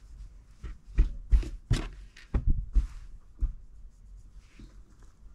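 Handling noise from hands working a knitted hat and yarn on a table: a run of irregular soft knocks and thumps in the first half, then light rustling.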